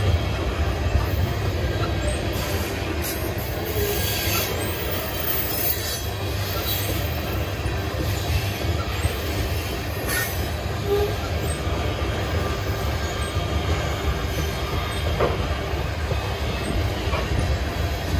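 Long manifest freight train rolling past: a steady low rumble of steel wheels on rail, with brief faint wheel squeals now and then.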